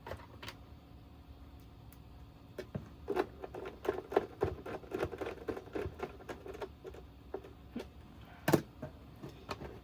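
Irregular small clicks, taps and light rattles of hands handling the oscilloscope's plastic housing and screws, busiest a few seconds in, with one sharper knock near the end.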